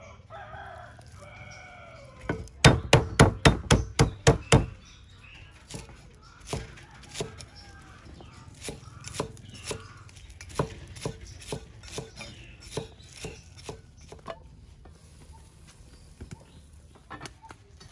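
Cleaver chopping on a wooden chopping block: a quick run of loud chops, about four a second, from two to four and a half seconds in. After that come slower, evenly spaced chops as garlic is minced and green onions are cut.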